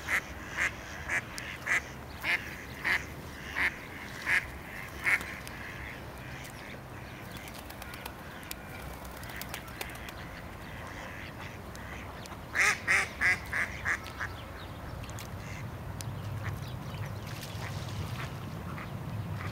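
Duck quacking: a series of about nine evenly spaced quacks over the first five seconds, then a quicker run of five quacks about twelve seconds in.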